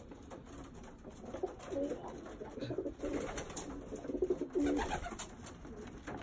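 Racing pigeons cooing: a run of low, repeated coos starting about two seconds in and easing off near the end, with a few faint clicks.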